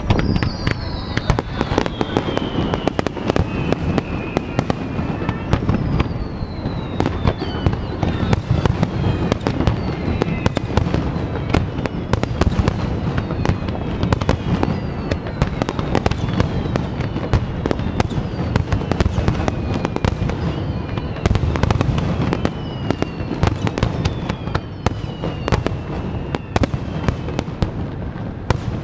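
Large fireworks display: shells bursting in rapid succession with dense crackling. Several whistles fall in pitch over two or three seconds each.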